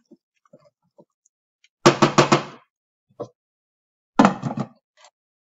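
A wooden spoon is rapped several times in quick succession on the rim of a stainless steel saucepan, about two seconds in. Just after four seconds a glass lid is set onto the pan with a short clattering rattle.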